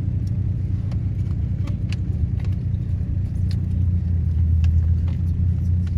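Steady low rumble of a car driving, with a few faint clicks over it.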